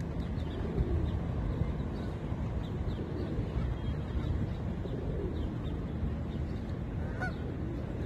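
Canada geese honking now and then over a steady low rumble.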